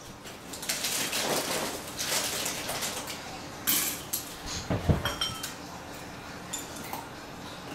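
Dry cereal rattling and rustling into a bowl, then two sharp knocks, the second the loudest, followed by a metal spoon clinking lightly against the bowl while cereal is eaten.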